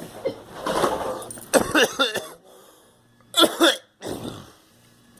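A person coughing in harsh fits: a run of coughs about a second to two seconds in, then two loud coughs about three and a half seconds in and a smaller one just after.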